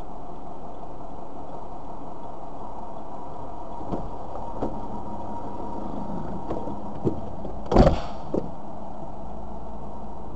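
Car idling steadily, heard inside the cabin, while the driver climbs into his seat: a few light knocks, then a louder thud just under eight seconds in as the car door shuts.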